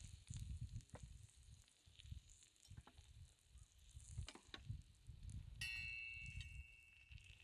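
Faint sizzling of salt-koji marinated meat frying in a Turk wrought-iron pan, under low irregular rumbling and a few light clicks. A high steady tone starts abruptly about two-thirds of the way in and holds for about two seconds.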